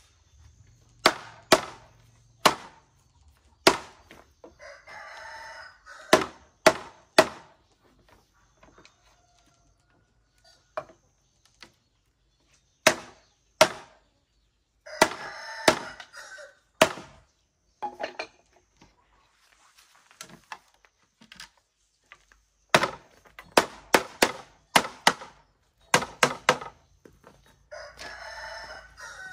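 A rooster crows three times, each crow about a second and a half long. Between and over the crows come repeated sharp knocks of a tool striking wood in irregular clusters, and these are the loudest sounds.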